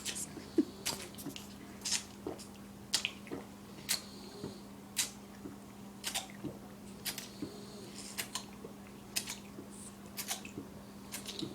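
A person swallowing in repeated gulps, short wet clicks about once a second, building up a burp. A steady low hum runs underneath.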